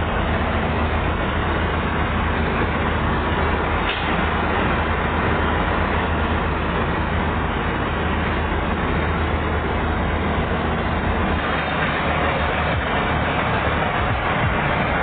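Chardikala combine harvester running steadily: a low engine hum under a dense, even mechanical noise.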